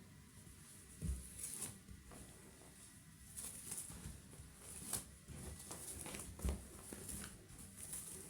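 A cat at play: scattered light taps and scuffs of paws on the floor and on a toy, with two louder soft thumps, about a second in and again at six and a half seconds.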